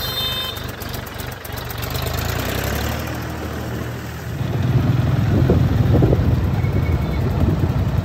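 Tractor diesel engine running with a steady low throb, getting louder about four seconds in.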